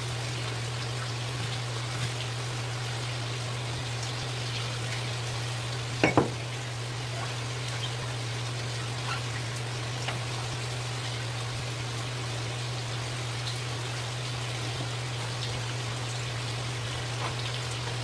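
Steady low hum under an even water-like hiss, with scattered faint clicks of a knife working through a large yellowtail's head on a cutting board and a sharp double knock about six seconds in.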